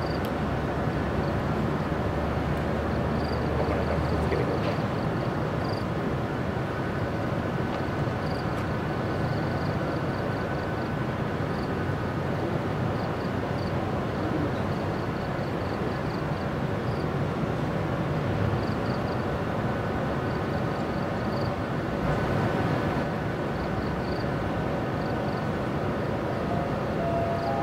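45-ton electric locomotive moving slowly away with its five Koki 200 container wagons: a steady rumble of motors and wheels on rail. Faint, irregular high-pitched chirps run over it.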